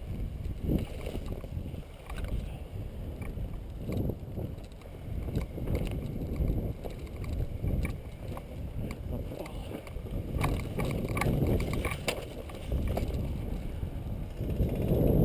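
Footsteps over dry leaves, twigs and gravel while walking, under a low uneven rumble of wind and rubbing on the body-worn camera's microphone. A cluster of sharper twig-like cracks comes about two-thirds of the way through.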